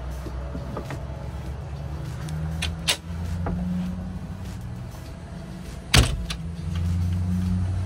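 Fiberglass cabinet door on a boat's cockpit counter clicking at its latch as it is opened and shut, with a sharp click about three seconds in and a louder snap of the door closing about six seconds in, over a steady low rumble.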